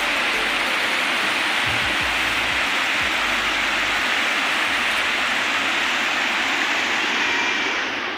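Waterfall: a steady rush of falling water, dropping in level near the end.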